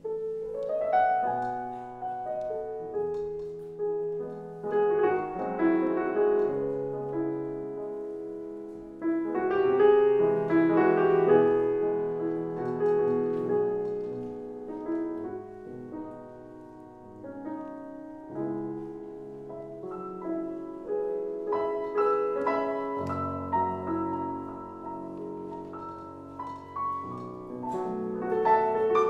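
Solo classical piano played on a grand piano, in phrases that swell and ease, growing louder about nine seconds in and again near the end.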